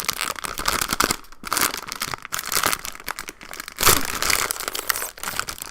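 Plastic packaging crinkling and being torn open by hand: dense irregular crackles, with a louder crackle about four seconds in.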